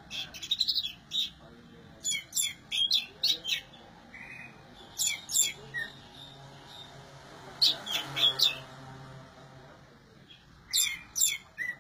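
Orange-headed thrush singing: five short bursts of quick, high chirping notes, a pause of a second or two between each. The bird is coming back into song after finishing its molt.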